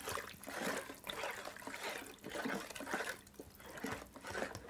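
Wooden spoon stirring flour into coloured water in a plastic mixing bowl, the liquid swishing in irregular strokes as the flour is mixed in for homemade playdough.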